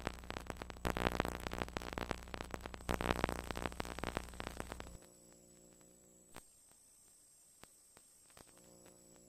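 Glitchy synthesizer intro music with heavy static crackle over a low held drone, cutting off sharply about halfway through. It leaves faint held tones broken by a few sharp glitch clicks.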